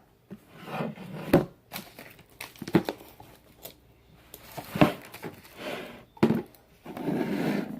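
Crinkling and rustling of handled packaging as craft supplies are picked up and opened, with three sharp clicks or taps spread through it and a longer rustle near the end.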